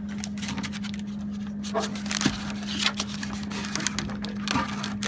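Scattered taps, clicks and crinkles as a ruler is worked against stuck chip bags inside a snack vending machine, over a steady low hum. The sharpest click comes a little past two seconds in.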